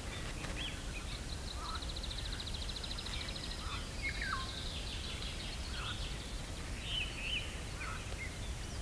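Small birds singing over a steady low outdoor background: a fast high trill about two seconds in, then scattered short whistled chirps.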